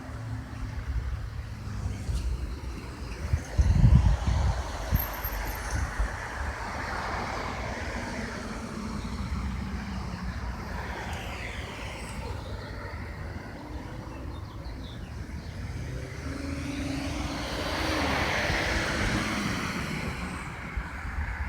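Road traffic running steadily, with a vehicle swelling louder near the end.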